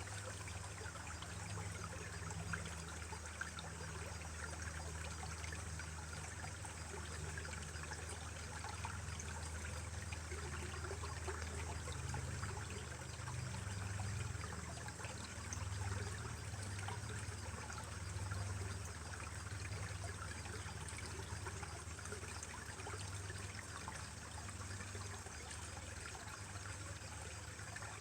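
Small mountain stream trickling and babbling over rocks, a continuous gurgling with a low rumble underneath.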